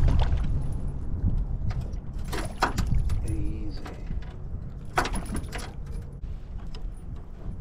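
A hooked bass thrashing and splashing at the surface beside the boat as it is landed, in two short bursts about two and a half and five seconds in, over a steady low rumble of wind on the microphone.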